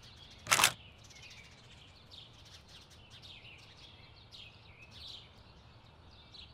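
Faint birds chirping in quick, high calls over a soft, steady hiss, with one short, loud burst of noise about half a second in.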